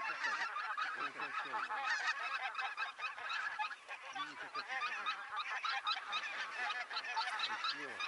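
A large flock of wild geese calling: many short, overlapping honks with no break.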